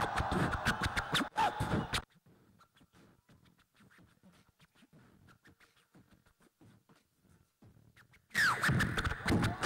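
Beatboxing into a handheld microphone over the stage PA, with turntable-scratch imitations and rhythmic clicks and kicks. About two seconds in it drops to faint clicks, and it comes back loud near the end.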